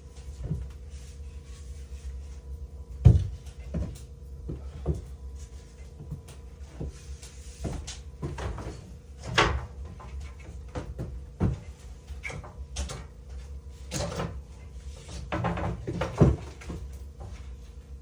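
Irregular wooden knocks and thumps of boards and timber being handled during wall framing, the loudest about three seconds in and again near the end, over a steady low hum.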